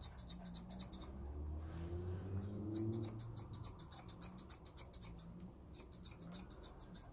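Chunking shears (wide-toothed grooming scissors) snipping rapidly through a West Highland terrier's head coat, about eight snips a second, in three quick runs with short pauses between.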